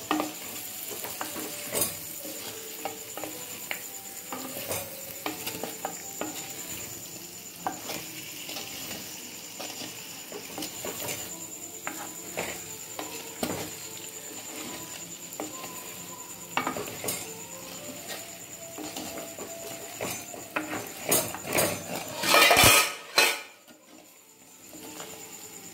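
Wooden ladle stirring chicken pieces in masala in an earthenware cooking pot: frequent knocks and scrapes against the pot over a light sizzle, with a brief loud burst of noise near the end.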